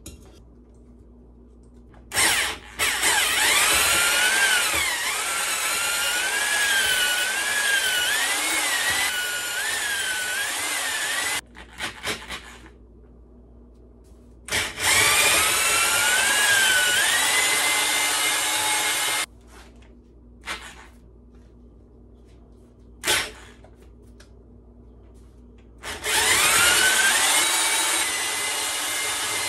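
Electric drill spinning a cylinder hone with straight stones in a Mercury 150 outboard cylinder bore, run in three long bursts with short trigger blips between. The whine wavers in pitch during the first burst and holds steadier in the later ones. The stones grind without the 'whoa, whoa, whoa' wobble, a sign that the bore is now a lot more straight and round.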